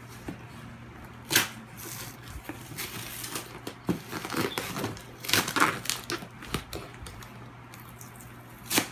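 Cardboard shipping box being opened by hand: packing tape slit and torn and the cardboard handled, with sharp loud rips about a second and a half in, around five and a half seconds, and near the end.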